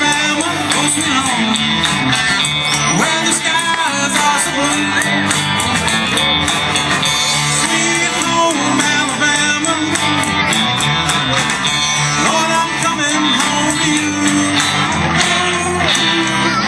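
Live rock band playing a cover song through a PA, with electric guitars, drums and singing.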